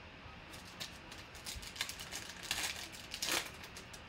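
Foil wrapper of a Panini Prizm football card pack crinkling and tearing as it is opened by hand: a run of crackly rustles, the two loudest near the end.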